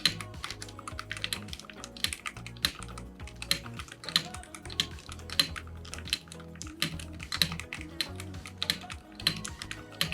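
Typing on a DBE Side 84 mechanical keyboard with a silicone dampening layer: a steady, irregular run of sharp keystroke clicks, over soft background music.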